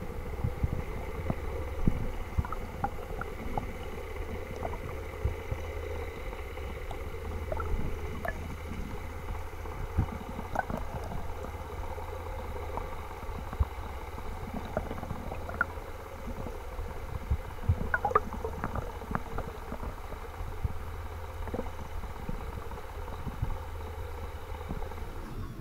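Underwater ambience picked up by a diver's camera while freediving: a steady low rumble with scattered sharp clicks and crackles.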